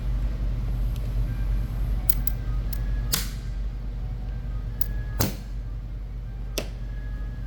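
Sharp clicks and clinks of screws and small hand tools against the metal parts of an airsoft rifle being taken apart, the loudest about three seconds in and again a little after five seconds, over a steady low hum.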